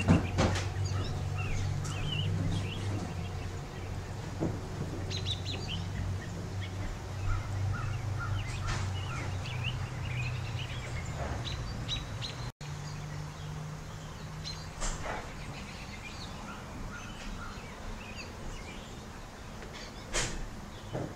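Small birds chirping in the background, with a low steady hum and a few faint clicks underneath.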